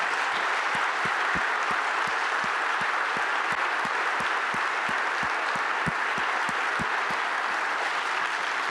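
An audience applauding steadily, a long sustained round of applause.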